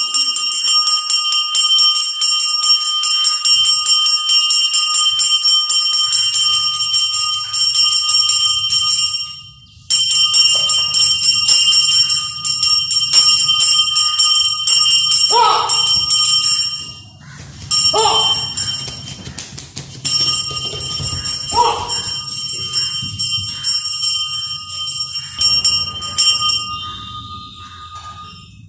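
Temple puja bell ringing rapidly and without let-up, breaking off briefly about ten seconds in and stopping shortly before the end. It runs over a low hum, and midway three short, loud pitched sounds come a few seconds apart.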